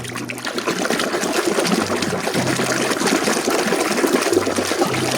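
Water splashing and pouring steadily as a muddy toy vehicle is washed clean.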